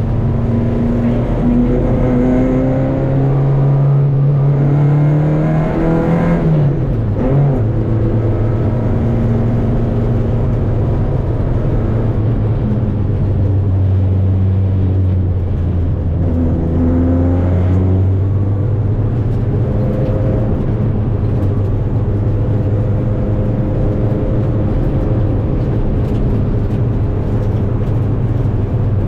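Renault 5 Alpine rally car's four-cylinder engine heard from inside the car, revving up through the first six seconds, dropping sharply in revs about six to seven seconds in, then running at fairly steady high revs with a brief rise in the middle.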